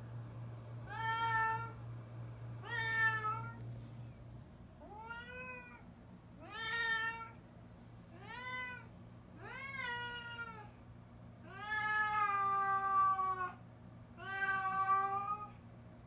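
Domestic cat meowing over and over: about eight drawn-out meows a second or two apart, several rising then falling in pitch and one longer near the end. It is plaintive crying to be let outside.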